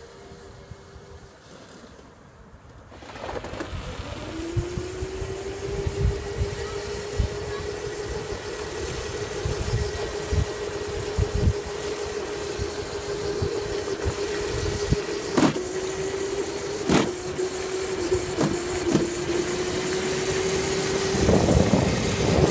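Kids' electric ride-on driving at speed. A steady motor-and-gearbox whine comes in a few seconds in, rises briefly, then holds one pitch. Under it are uneven wind rumble on the microphone, tyre noise on asphalt and a few sharp knocks.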